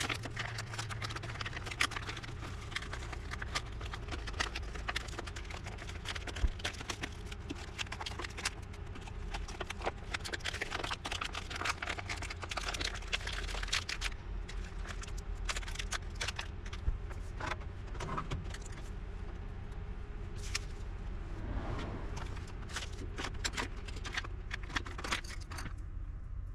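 Irregular small clicks and rattles, like tools and small parts being handled, over a steady low hum.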